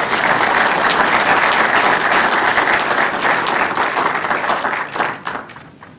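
Audience applauding steadily, then dying away about five seconds in.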